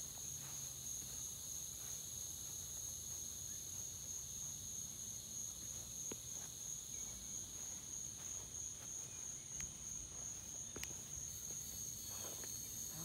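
Insect chorus holding one steady high pitch throughout, with a couple of faint clicks.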